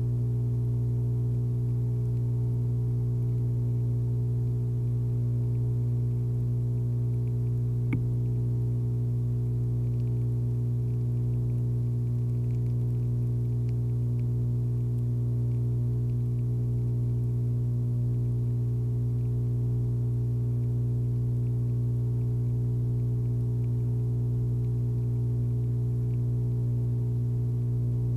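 A steady low hum with a stack of overtones, unchanging throughout, with a single faint click about eight seconds in.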